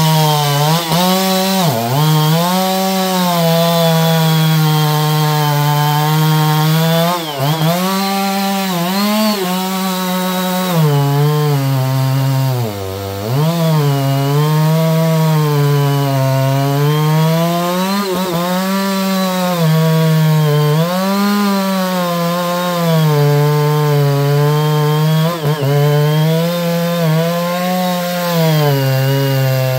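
Two-stroke chainsaw running under load while cutting wood. Its engine pitch repeatedly sags and recovers as the chain bites, with a few deeper bogs where the revs drop sharply and climb back.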